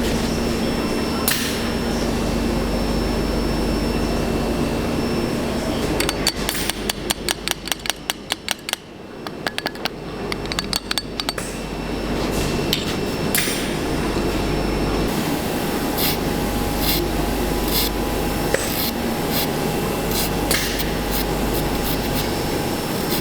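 A fast run of sharp tapping strikes, about five a second, lasting several seconds near the middle, over a steady workshop hum; a few scattered single knocks follow later.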